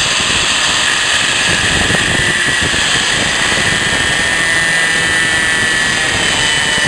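Power saw running steadily with a high whine, cutting about 3 inches off plastic well pipe; the friction is hot enough to burn the plastic.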